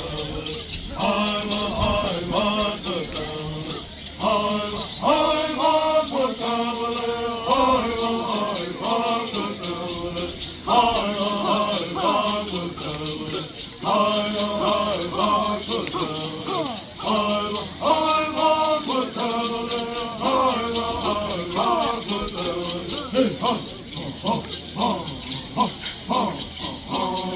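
Bird songs: singers chanting in unison phrases while shaking gourd rattles in a fast, steady rhythm.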